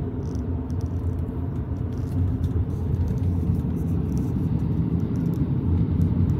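Steady low rumble of a car driving along a road, heard from inside the cabin: tyre and engine noise with no change in pace.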